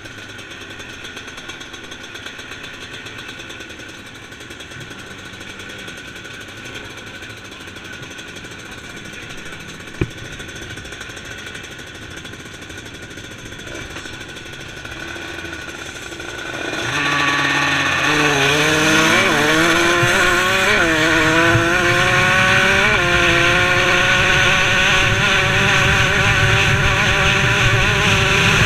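Motocross bikes ticking over at the start line, with one sharp knock about a third of the way in. A little past halfway the rider's 125cc two-stroke motocross bike revs hard and accelerates away, much louder. Its pitch climbs and drops back with each of three or four gear changes, then holds high at speed.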